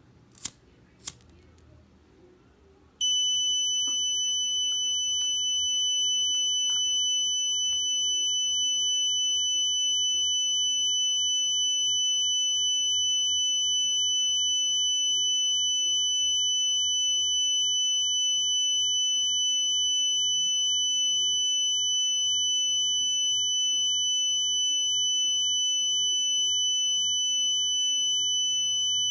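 Two sharp clicks, then a homemade fire alarm's buzzer sounds one continuous high-pitched tone. The tone holds steady and unbroken, without beeping on and off.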